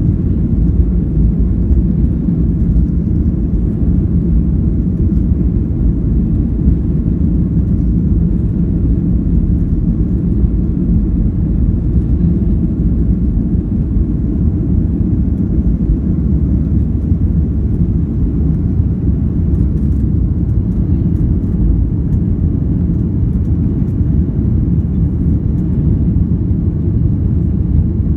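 Boeing 737-800 taking off, heard from inside the cabin: the CFM56 jet engines at takeoff power make a loud, steady, low rumble.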